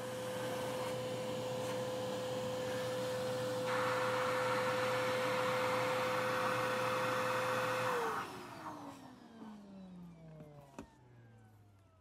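Vacuum cleaner running with a steady whine and rushing air, the air noise growing louder about four seconds in. About eight seconds in it is switched off and the motor winds down, its pitch falling away as it fades; a sharp click near the end.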